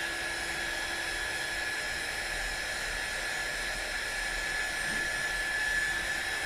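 Hot air gun blowing steadily, with a steady high whine in its airflow noise, heating a phone's button ribbon connector to soften the adhesive beneath it.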